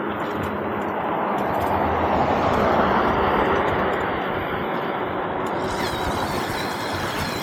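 Wind and road noise while riding, a dense rushing that swells to its loudest partway through and then eases.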